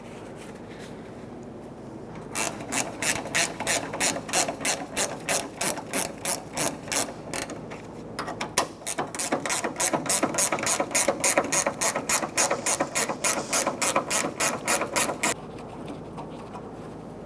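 Ratchet clicking rapidly and evenly as it backs out the 13 mm hood latch mounting bolts, in two long runs with a short break about eight seconds in.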